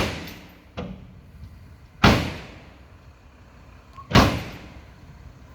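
Loud, heavy bangs: three big ones about two seconds apart, with a smaller knock about a second in, each dying away quickly.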